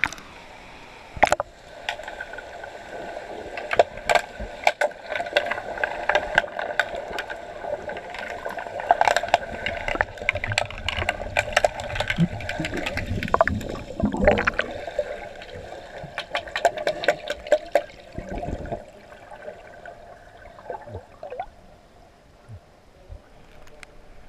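Underwater hockey heard underwater: a rapid scatter of sharp clicks and knocks from sticks and the puck striking the tiled pool floor, over gurgling water and a steady hum. The clicking thins out and the sound quietens for the last few seconds.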